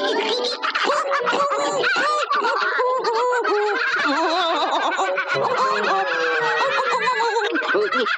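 Cartoon soundtrack: a crowd of small, high cartoon frog voices giggling and laughing together over music.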